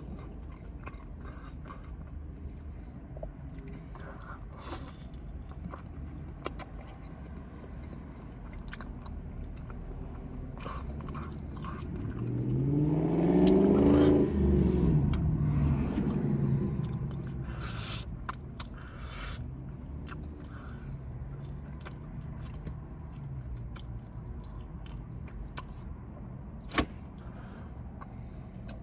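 Close-miked chewing and biting of food, many small wet clicks. Near the middle a passing car's engine note swells, rising and then falling in pitch, and fades out again.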